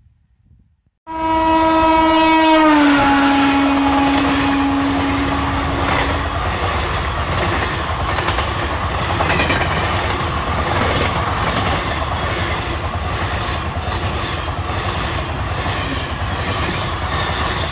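Indian Railways express passenger train passing at speed close by. Its locomotive horn starts about a second in and sounds for several seconds, its pitch dropping as the locomotive goes past. Then come the steady rumble of the coaches and the regular clicking of wheels over rail joints.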